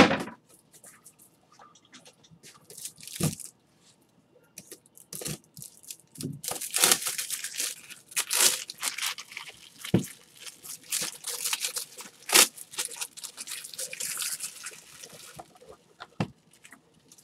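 Crinkling and tearing of plastic packaging, running from about six seconds in until near the end, with scattered knocks and clicks; a sharp knock right at the start is the loudest sound.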